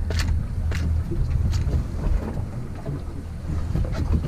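A boat's engine running with a steady low drone, with several short knocks and clicks over it.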